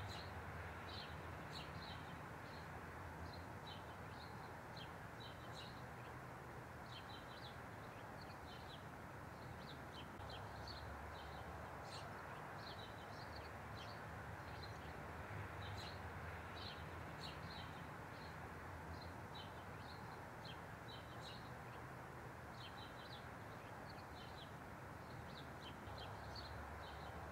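Outdoor ambience: many short, high bird chirps, several a second, over a faint steady low background hum.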